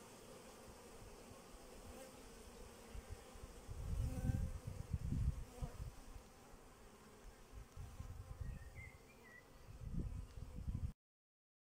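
Steady buzzing hum of a large mass of honeybees clustered on the outside of a wooden hive. Low rumbles on the microphone come and go around the middle and again near the end, and the sound cuts off abruptly just before the end.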